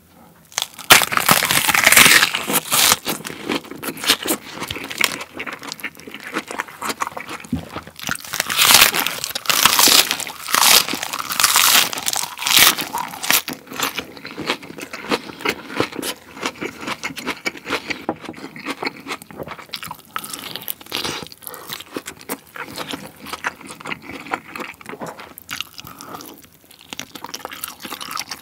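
Close-miked crunching of a raw napa cabbage leaf wrap being bitten and chewed. Loud, crisp crunches come in two rounds in the first half, then give way to quieter, softer chewing.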